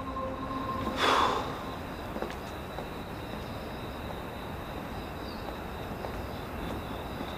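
Steady night-time street ambience: a low background hiss with a faint high steady whine. About a second in, a short rushing whoosh is the loudest sound, just as a low droning music tone cuts off.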